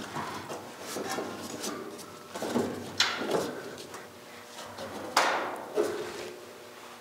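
Loose sheet-steel body panel clanking and knocking against a car's metal body shell as it is held and pressed into place by hand: a series of separate knocks with short metallic ringing. The loudest comes about five seconds in.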